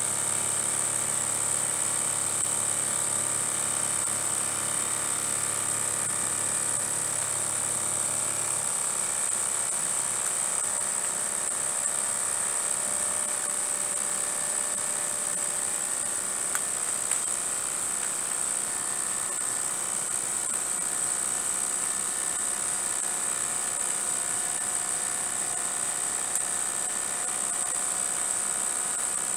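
Small model horizontal mill steam engines running on live steam, with a steady high-pitched hiss throughout and a low hum that stops about nine seconds in.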